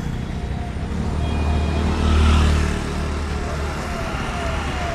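A motor vehicle passing close by on a road, its low engine rumble swelling about two seconds in and then fading, over steady traffic noise.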